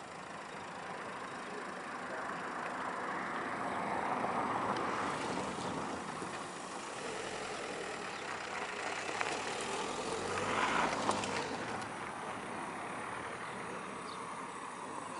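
Car driving along a road: steady engine and tyre noise that swells twice, about four seconds in and again around eleven seconds.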